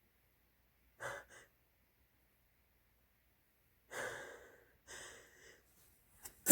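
A person's sharp, hissy in-breaths of a sneeze buildup: a short gasp about a second in, then after a long pause a longer breath, another a second later, and a quick catch just before the end.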